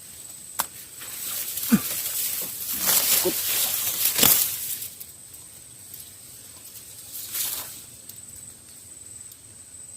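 Rustling, hissing noise that swells for a few seconds, with a click and a short squeak and a second, smaller rustle later. A steady high-pitched insect trill runs underneath.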